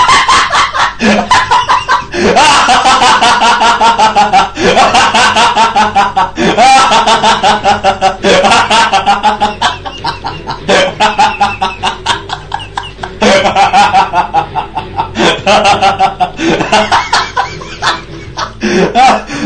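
A man laughing uncontrollably: long bouts of rapid, high-pitched cackling, several pulses a second, broken by short pauses every couple of seconds.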